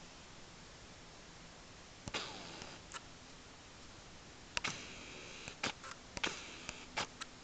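A scattered series of sharp clicks and knocks, some with brief rustling tails: one about two seconds in, then a cluster of several more through the last three seconds.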